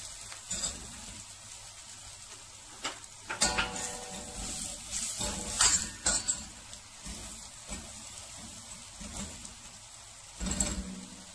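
Onion, garlic and spices sizzling in melted butter in a metal pot while a silicone spoon stirs them. The spoon scrapes and knocks against the pot several times, once with a brief ring a little after three seconds and again near the end.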